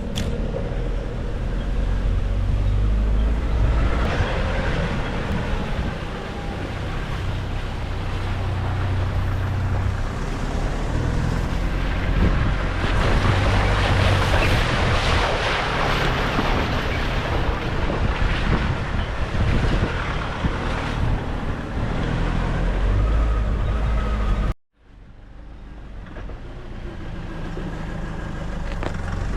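Nissan Navara D40 ute driving off-road. The engine runs under a rushing wind and tyre noise that grows loudest in the middle. Near the end the sound cuts out abruptly for a moment and comes back as a quieter, steadier engine running.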